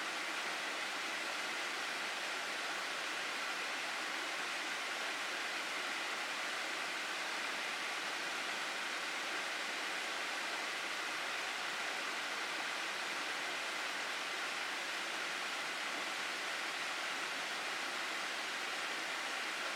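Rushing water in the Minamihara gorge stream: a steady, even hiss that does not change.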